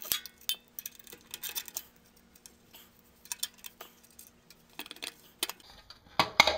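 Irregular clicks and light clatter of a nut driver on airbox screws and a plastic generator airbox being handled and pulled at, with a louder rattle near the end.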